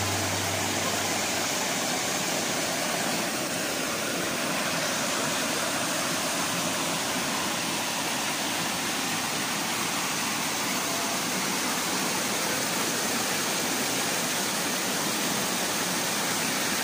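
Waterfall and rapids pouring over rock ledges: a steady, even rush of water.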